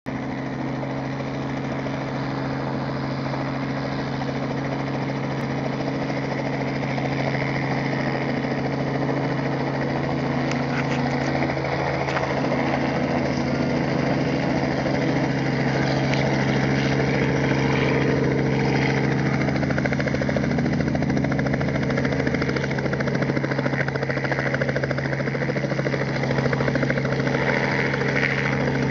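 Small two-bladed helicopter's engine and rotor running with a steady low hum, growing gradually louder as it spools up and lifts off into a hover near the end.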